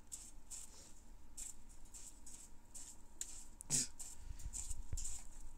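A raven digging with its beak in crusty snow: a run of soft crunching scrapes, two or three a second, with one louder scrape about two-thirds of the way through.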